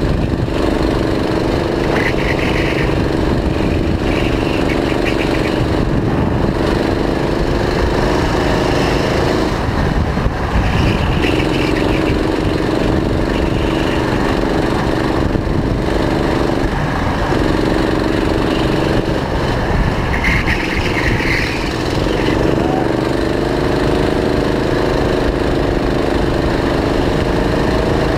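Go-kart engine running hard under way, heard from on board, over a steady rush of noise. Its note breaks off and returns a few times, about ten, seventeen and twenty-one seconds in.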